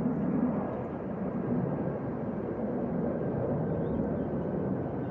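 Steady outdoor background noise: an even, unbroken rumble with no distinct events.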